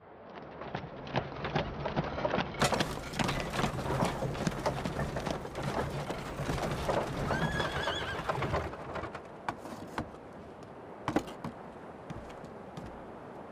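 Horse-drawn carriage arriving: hooves clopping quickly over paving with a low rumble, and a horse whinnying briefly about six seconds in. The hoofbeats stop about two-thirds of the way through, leaving a few scattered clops.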